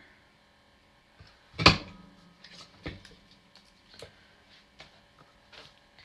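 Stampin' Up! Tailored Tag punch pressed down once, a sharp snap about one and a half seconds in as it cuts a banner end on a cardstock strip, followed by a few light taps of the paper and punch being handled.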